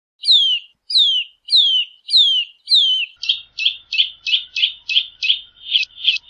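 Eurasian nutcracker calling: five clear notes, each sliding down in pitch, then about halfway through a quicker run of shorter repeated notes, about three a second.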